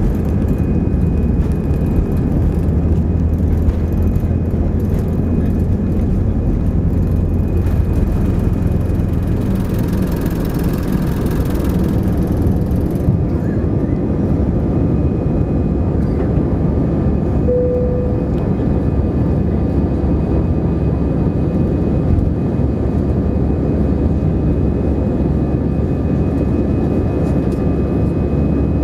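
Airbus A320 jet engines at takeoff thrust heard inside the cabin, a steady loud roar, at first with the rumble and hiss of the takeoff roll. About halfway through the rumble and hiss fall away as the aircraft lifts off, leaving a steady engine drone in the climb, with a short tone about two-thirds of the way in.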